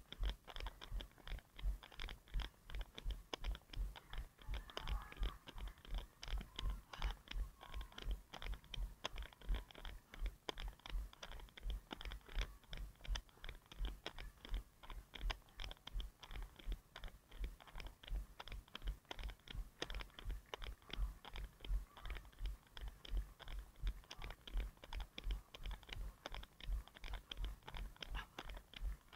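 A runner's footfalls jolting a head-mounted action camera: a steady rhythm of dull thumps, about three a second, at an even running cadence.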